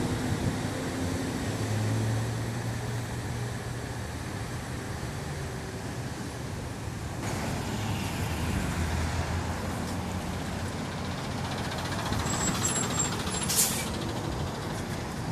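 Box trucks and other vehicles passing in street traffic, with engines running and tyre noise. A short sharp hiss comes near the end as a truck passes close.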